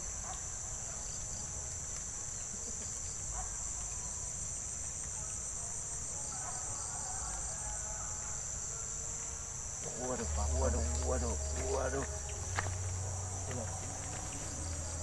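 Steady high-pitched drone of insects in the surrounding vegetation, with a faint voice and a low rumble about two-thirds of the way in.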